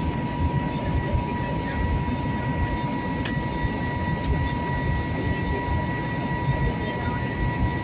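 Steady rumble of a jet airliner heard from inside the passenger cabin, with a thin, steady high-pitched whine over it.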